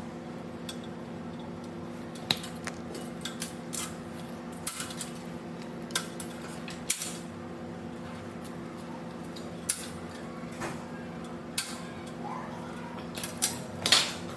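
Irregular metallic clinks and taps of hand tools working on a flexible metal conduit fitting on an air-conditioner fan motor, the loudest cluster near the end, over a steady low hum.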